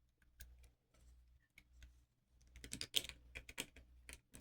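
Small sharp metallic clicks from inside a repinned pin-tumbler lock being worked with a pick: a few scattered clicks, then a quick run of clicks in the second half.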